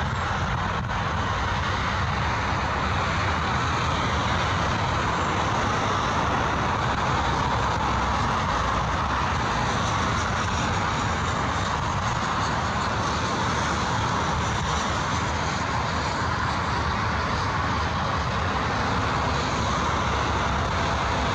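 Airbus A320neo's CFM LEAP-1A turbofan engines at takeoff thrust, a steady rush of jet noise as the airliner rolls down the runway and climbs away.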